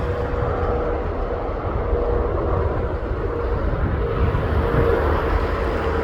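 Airbus A380 jet noise: a steady low rumble with hiss and a faint steady hum.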